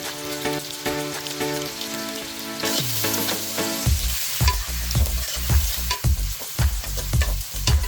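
Curry frying and sizzling in a pan while it is stirred, the hiss growing stronger about a third of the way in. Background music plays with it, turning to a steady thumping beat about halfway through.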